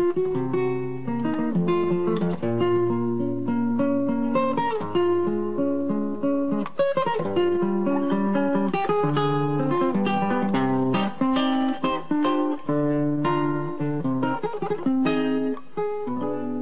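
Nylon-string classical guitar playing a tango arrangement: quick plucked melody notes and chords, in a fast and busy line.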